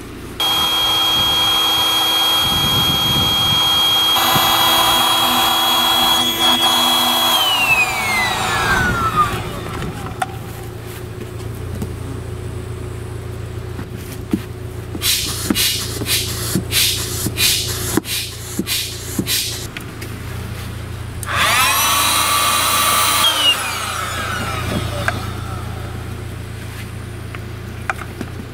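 Small electric air pump inflating an inflatable boat through a hose: the motor runs with a steady whine, is switched off and winds down with falling pitch, then after a run of sharp clicks about two a second is run again briefly and winds down once more.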